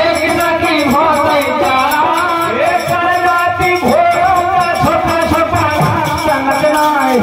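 Bundeli devotional bhajan kirtan song: a voice singing over a steady beat of rattling, jingling percussion.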